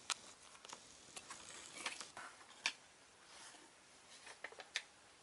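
Faint, irregular clicks and ticks, a few sharper than the rest, from a Dark Cancer CH120SF Beyblade spinning in a plastic stadium, well into its spin.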